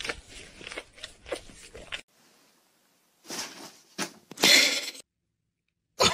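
A dog licking a kitten's head, a wet lick about twice a second. After a short gap come two sudden noisy crashes, the second the loudest and lasting about half a second.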